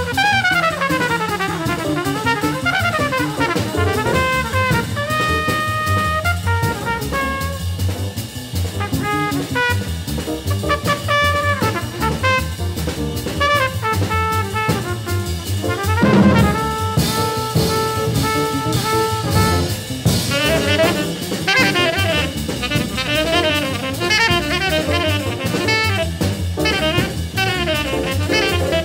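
1950s jazz quintet recording: a trumpet plays a solo line, with a fast falling run near the start, over piano, double bass and drum kit keeping steady time.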